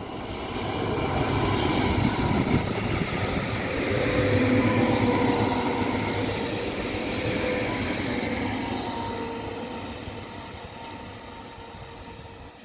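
An SBB train passing by. It grows loudest about two to five seconds in, then fades away, with a steady squeal or whine from the wheels under the rumble.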